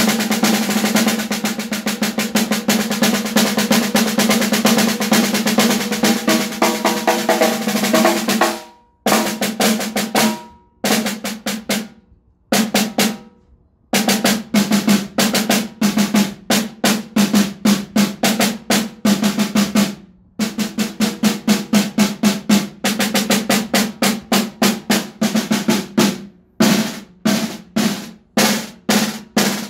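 Acoustic snare drums played with wooden sticks: an unbroken roll for about the first eight seconds, then bursts of fast strokes and single hits broken by short pauses, each stroke followed by the drum's low ring.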